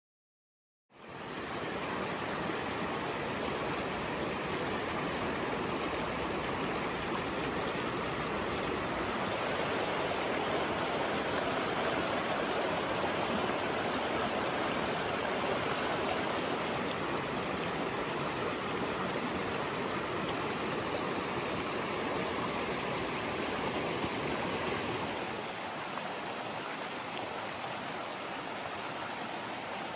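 Shallow rocky mountain stream rushing over stones and riffles in a steady, even wash of water. It starts suddenly about a second in and gets a little quieter near the end.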